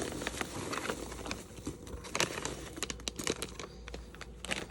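Packaging crinkling and rustling as items are lifted out of a shipping box, with scattered light clicks and taps.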